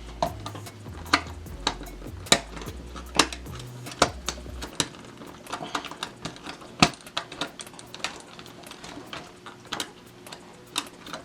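Irregular sharp plastic clicks and taps as the internal parts of a Nerf Rival Takedown blaster are handled and fitted together, a dozen or more at uneven spacing.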